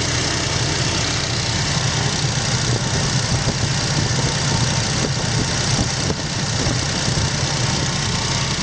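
UAZ Patriot engine running steadily with a rapid, even knock from under the hood, which the owner suspects comes from the timing chain tensioner.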